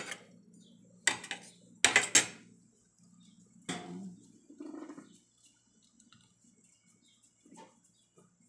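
Kitchen cookware being handled, clattering in several sharp knocks and clinks. The loudest is a pair about two seconds in, and it ends with a faint clink near the end.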